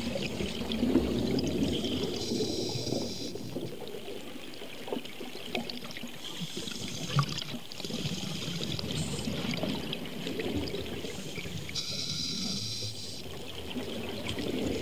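Scuba diver breathing underwater through a regulator: three hissing inhalations, each about a second long and roughly five seconds apart, with gurgling, bubbling exhalations between them.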